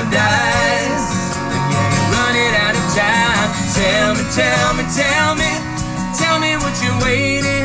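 Acoustic guitars strumming chords while a man sings the melody, an acoustic pop song.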